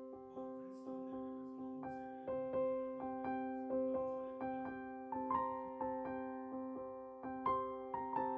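Background music: a gentle piano melody over sustained held notes, with a new note struck about every two-thirds of a second.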